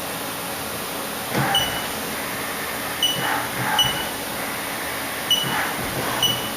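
Haas machining center controller beeping each time the touch probe touches off a point in a cylinder-head valve seat pocket: five short high beeps, with brief rushes of the machine moving between points over a steady machine hum.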